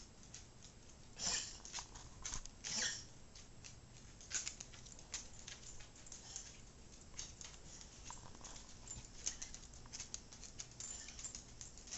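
A dog's claws clicking and tapping irregularly on a hardwood floor as she walks about, with a couple of louder knocks in the first few seconds.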